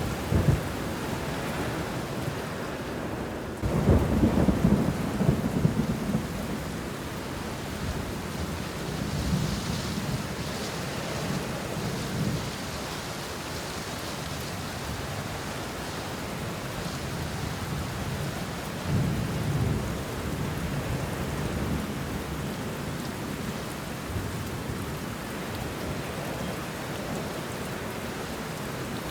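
Steady rain falling on banana leaves and bushes, with rolls of thunder rumbling low several times, the strongest about four seconds in.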